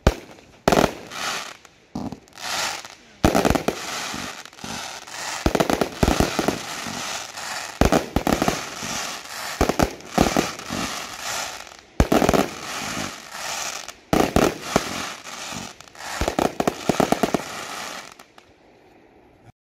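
Da Wei Detonator 196-shot compound firework box firing: a dense, near-continuous string of shots and aerial bursts. It thins out near the end and stops.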